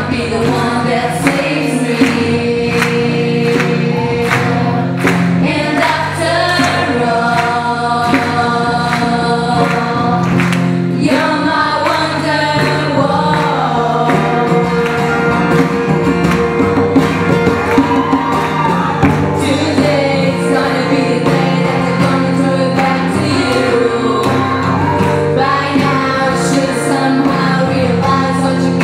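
Live acoustic pop song: male and female voices singing over a strummed acoustic guitar and a djembe hand drum keeping a steady beat.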